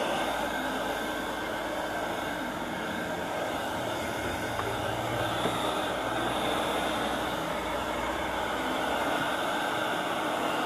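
Hand-held hair dryer running steadily, its air rushing over the opened sewing machine mechanism to blow out dust and lint during cleaning.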